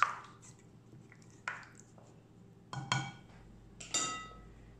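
A spatula scraping and tapping against a glass mixing bowl as chicken drumsticks are turned in a marinade, in a few separate knocks. Two clinks, about three and four seconds in, leave the glass ringing briefly.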